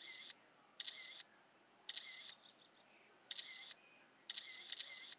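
Camera shutter clicking again and again, one short shutter sound roughly every second.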